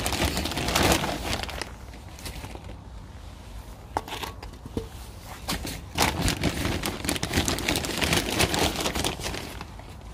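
Plastic bag crinkling and rustling as it is handled, in two stretches: over the first two seconds and again from about six seconds to about nine and a half.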